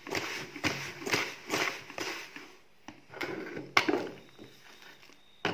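Plastic-tubed magnetic cleanup tool stirred through brass shavings in a plastic bucket, the turnings rustling and scraping against the bucket wall in repeated swishes, as it picks the last steel fragments out of the brass. Then a few knocks and one sharp tap as the tool is lifted out against the rim.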